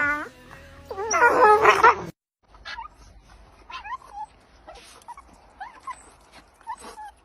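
A dog's loud wavering whine with a howling quality, cut off about two seconds in, followed by scattered faint short yips and whimpers.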